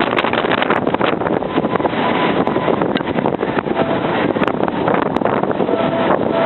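Strong wind buffeting the microphone: loud, continuous, gusting wind noise.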